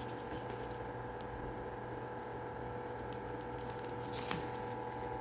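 Faint handling noises over a steady low hum, with one light tick about four seconds in.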